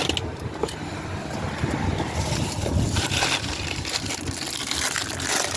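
Crinkling and rustling handling noise with scattered clicks.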